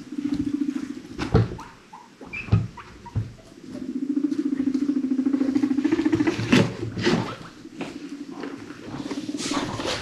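Guinea pig rumbling: a low, buzzing purr-like rumble that comes in three spells, the longest lasting about two and a half seconds, with a few sharp knocks and light patter in between.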